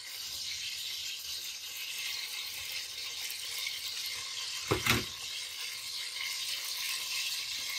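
Sliced onions sizzling steadily in hot oil in a large aluminium pot, the frying starting as they go in. A brief louder sound about five seconds in.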